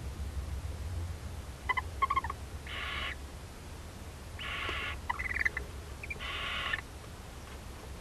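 Barn owls calling in the nest box: short twittering chirps twice, and three rasping, hissing screeches of about half a second each, a second or two apart.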